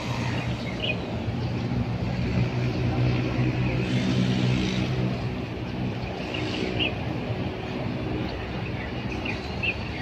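Steady low engine hum with a constant pitch under outdoor noise, with a few short bird chirps over it, about three times.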